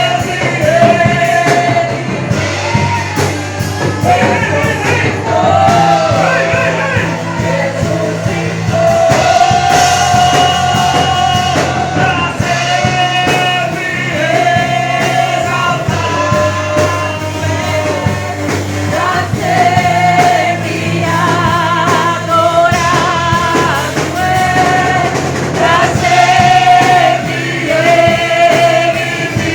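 A church worship band playing live, with a lead singer holding long notes with vibrato over a steady bass line.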